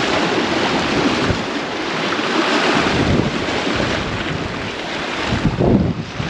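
Strong gale-force wind buffeting the microphone over the wash of sea surf, with a few heavier gusts near the end.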